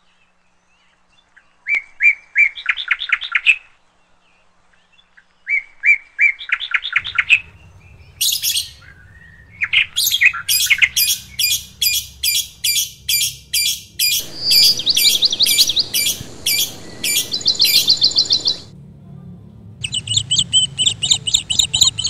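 Masked lovebird chirping: runs of rapid, shrill chirps in bursts a few seconds long, near-continuous through the middle and starting again near the end.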